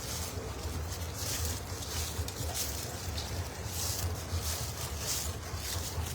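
A steady low machinery hum, with irregular short hissing rustles over it.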